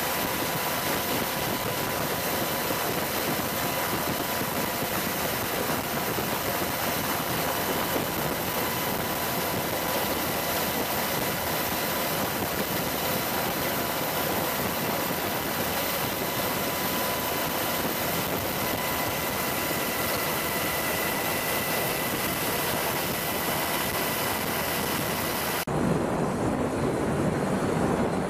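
Steady helicopter turbine and rotor noise heard from aboard a helicopter in flight, with a faint steady whine. Near the end it cuts abruptly to a deeper helicopter running sound from OH-58 Kiowa helicopters with their rotors turning.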